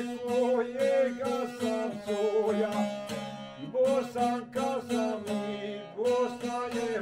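Music played on a plucked string instrument: a steady low drone under a wavering melody, with the strings plucked in a regular rhythm.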